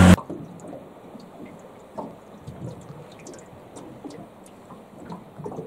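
A 30 hp outboard motor running at speed cuts off abruptly right at the start. After that come soft water lapping and small irregular knocks and slaps against the hull of a drifting aluminium boat.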